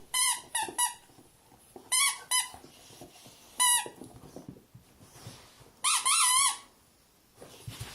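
Rubber duck squeaky toy squeaked in short bursts, about seven squeaks in clusters, as a dog bites down on it. The last squeak, about six seconds in, is drawn out with a wavering pitch.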